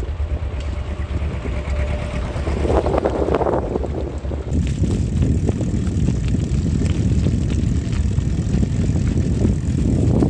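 Wind buffeting the microphone of a handheld camera carried by a moving cyclist, a loud, uneven low rumble, mixed with the rumble of bicycle tyres on the path.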